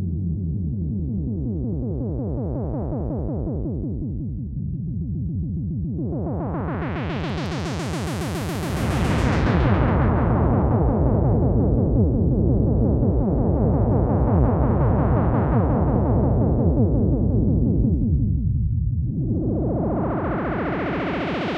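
Sequential Prophet-6 analog polyphonic synthesizer playing dry, with no effects, holding sustained low notes. Its filter sweeps slowly open and closed several times: brightest about 8 seconds in and again near the end, and louder from about 9 seconds in.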